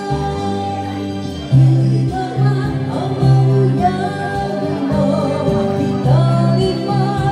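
A woman singing into a handheld microphone over a karaoke backing track, her voice amplified through the room's sound system.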